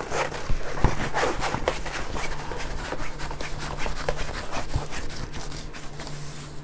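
A stiff diamond-painting canvas being rolled up by hand, giving a run of irregular crackly rustles and rubbing scrapes against a wooden tabletop.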